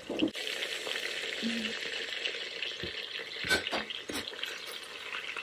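Chicken pieces sizzling steadily as they brown in melted butter in the stainless-steel inner pot of an electric pressure cooker. A few sharp clicks of metal tongs against the pot come between three and a half and four seconds in, as the pieces are turned.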